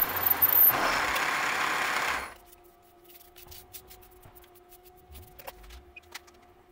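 Milling machine end mill cutting a slot in a metal block, a loud noisy cut with a thin high whine that stops abruptly about two seconds in. After that, a faint steady machine hum with light scattered clicks as chips are brushed out of the slot.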